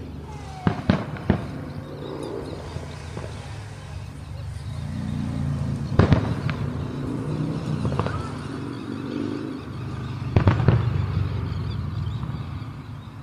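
Aerial fireworks shells bursting: three sharp bangs close together about a second in, a loud boom near the middle, another a couple of seconds later and a cluster of bangs near the end, over a steady low hum.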